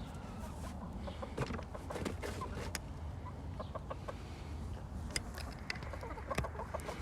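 A flock of chickens clucking, with many short, scattered calls and clicks.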